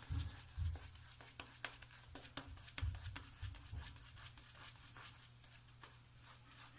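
Paragon two-band badger shaving brush working soap lather: faint, irregular squishing with soft clicks, and a few low thumps near the start and about three seconds in.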